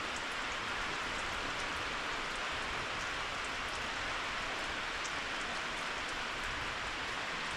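Steady rain falling on and around a carport, an even hiss with faint scattered drop ticks.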